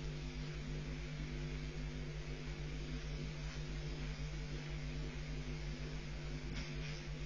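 Steady electrical mains hum and buzz with hiss from a nest webcam's audio feed, with a brief burst of louder hiss near the end.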